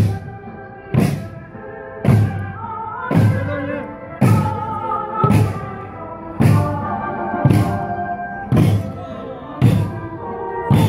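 A large marching drum beaten in a steady beat of about one stroke a second, with singing voices carrying a tune between the beats.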